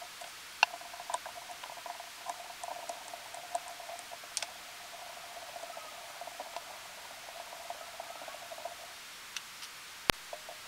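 Small clicks and ticks of hands and tools at a fly-tying vise over a faint, fluttering mid-pitched hum, with one sharp click near the end.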